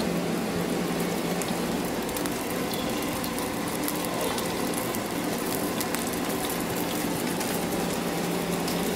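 Bacon strips sizzling in hot oil in a frying pan: a steady hiss.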